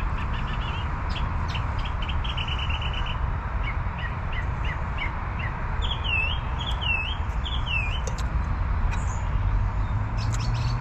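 Small birds chirping: runs of short high notes, then three swooping calls in the middle, over a steady low rumble of road traffic.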